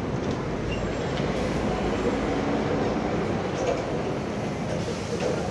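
Scania double-decker bus pulling in close by and coming to a stop, its diesel engine running under a steady mechanical rumble.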